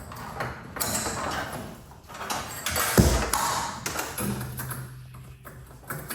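Metal clanks, taps and rattles of hand work on garage door torsion spring hardware, with one loud knock about three seconds in.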